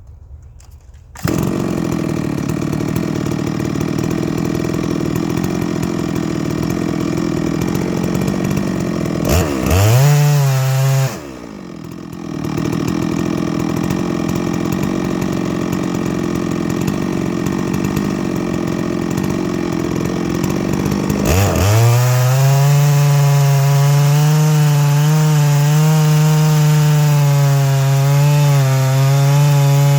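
Chainsaw on a chainsaw mill starting up about a second in and running steadily. It revs briefly around ten seconds in. From about two-thirds of the way through it is held at full throttle, a high, slightly wavering pitch of a saw under load, ripping a black oak slab with a freshly touched-up chain.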